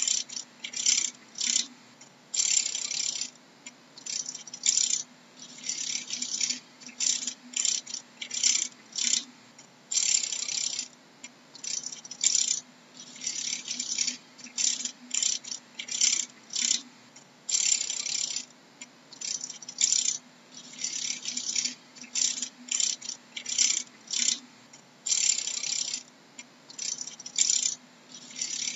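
Dragonfly wings rattling in dry, rasping bursts, short and irregular at roughly two a second, some drawn out to about a second, over a faint steady low hum.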